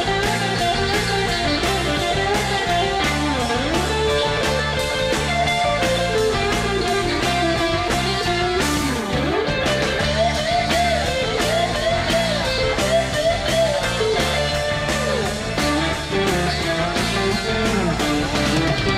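Background rock music led by guitar, with bending lead notes over a steady drum beat.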